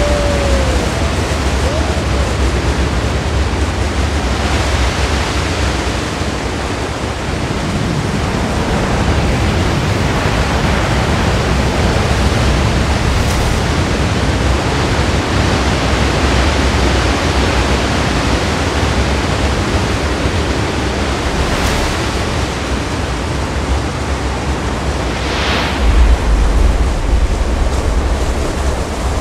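Giant ocean wave breaking, its whitewater making a loud, steady rush with a deep rumble underneath that swells louder near the end.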